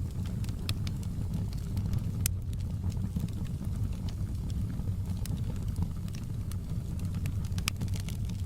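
Fireplace crackling, with irregular sharp pops and snaps over a steady low rumble of rain.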